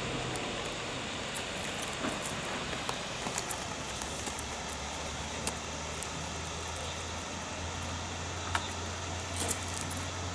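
Steady outdoor background noise with a low, even hum and scattered small ticks and clicks.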